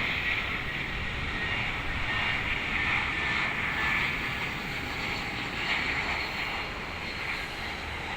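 Jet airliner engines during a landing approach: a steady rushing noise with a faint high whine.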